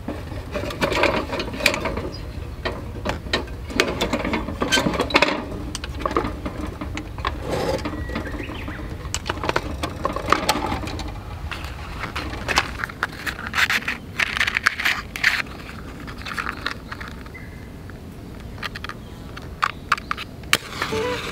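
Galvanized steel hurricane oil lanterns being handled and readied for lighting: wire handles, guards, caps and globe levers clink, rattle and scrape against each other and against the wooden table, in irregular bursts of knocks.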